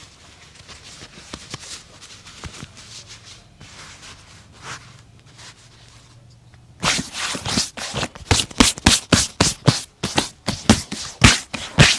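Faint handling sounds, then, about seven seconds in, a shoe brush scrubbing a boot in quick, loud back-and-forth strokes, about four a second.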